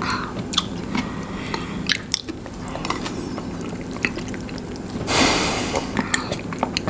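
Close-miked eating sounds: wet chewing with many small lip smacks and clicks as two people eat. About five seconds in there is a short hiss of breath.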